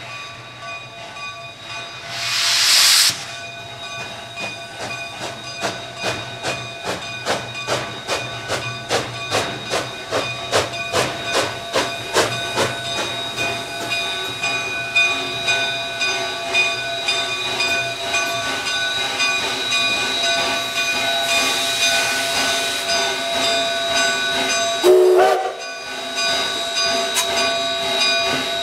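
K-36 narrow-gauge 2-8-2 steam locomotive No. 487 drifting slowly in and coming to a stop. About two seconds in there is a loud burst of steam hiss. After that comes an even, ringing clang a few times a second from the locomotive's bell, with another stretch of steam hiss and a short rising squeal near the end.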